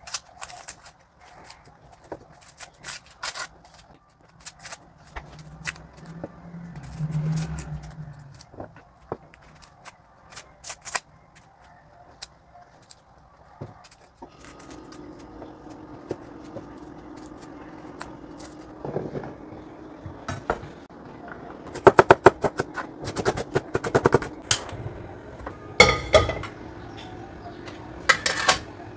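Kitchen handling noises: scattered clicks, knocks and clatters of dishes and utensils being moved and set down, getting busier near the end. From about halfway a steady low hum runs underneath.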